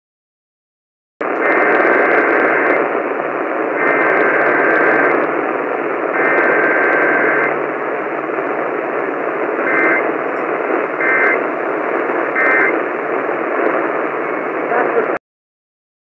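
Emergency Alert System Required Weekly Test received on an AM radio: three bursts of the two-tone digital header screech, each a little over a second long, then three short end-of-message bursts, all over heavy static hiss. The hiss comes in about a second in and cuts off sharply near the end.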